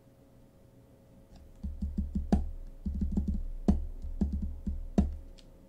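Typing on a computer keyboard: a quick run of keystrokes starting a little over a second in and lasting about four seconds, with three louder key strikes among them.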